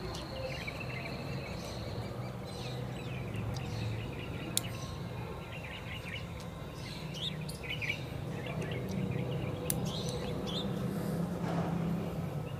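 Birds chirping in the background, with a couple of sharp clicks from a rotary pellet magazine being loaded and turned by hand.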